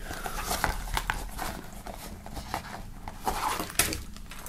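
Clear plastic zip pouch and its paper packing handled on a wooden table: scattered light taps and plastic-and-paper rustling.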